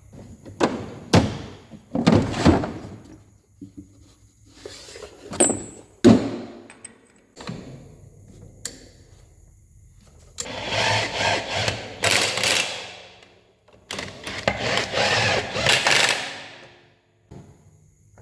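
Workshop repair work: several sharp metal knocks and clanks, then two loud bursts of power-tool noise, each about two seconds long.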